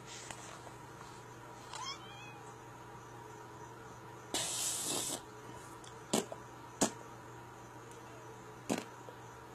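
Animal sounds: a short pitched call about two seconds in, a hissing noise lasting just under a second about halfway through, then three sharp clicks over a steady low hum.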